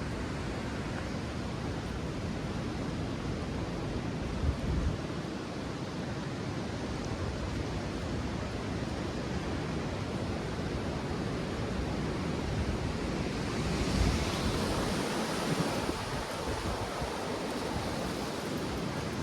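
Gusty storm wind rushing steadily, with wind buffeting the microphone in low rumbles. A stronger gust swells about three-quarters of the way through, bringing a brighter hiss.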